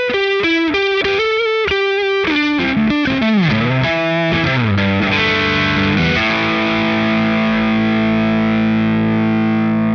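Gibson Les Paul electric guitar played through the Strymon Compadre compressor and boost, with the boost set to its dirty, overdriven mode. It plays a fast lick of picked notes that slides downward, then a chord left ringing from about six seconds in.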